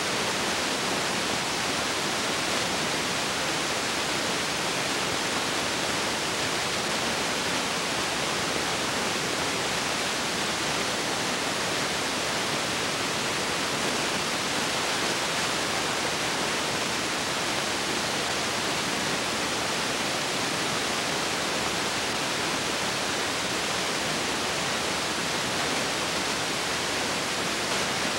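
Steady, even hiss with nothing else in it: noise on the soundtrack of a transferred silent film.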